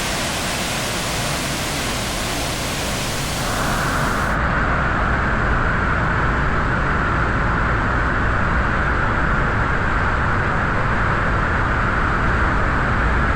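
Waterfall: a steady loud rush of falling water. About four seconds in it cuts to a narrower, steadier rush.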